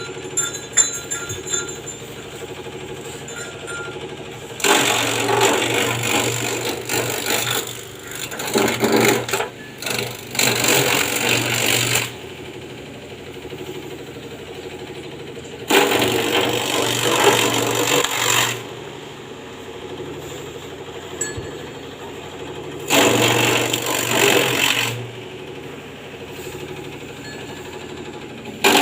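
Simple grass-chopping machine (chaff cutter) running steadily, with loud chopping bursts of a few seconds each as grass is fed through the blades: three times, and a fourth starting right at the end.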